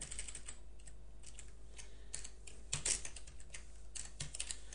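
Computer keyboard typing: irregular keystrokes as text is entered into a form field.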